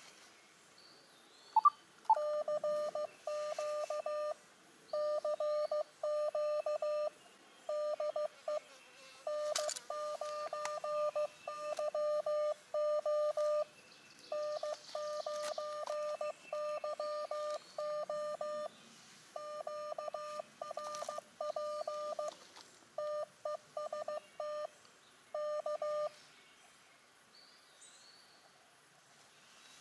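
Morse code (CW) from an Elecraft KX2 ham transceiver: a single steady-pitched beep keyed on and off in dots and dashes, in runs separated by short pauses. It starts about two seconds in and stops a few seconds before the end.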